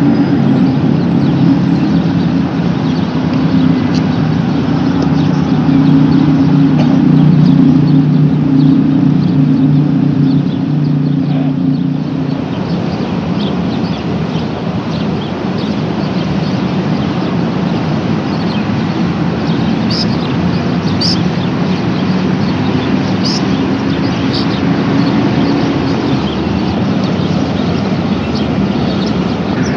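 Road traffic: vehicles' engines and tyres making a continuous hum, with a heavier engine drone for the first dozen seconds and again later. Short high chirps come through in the second half.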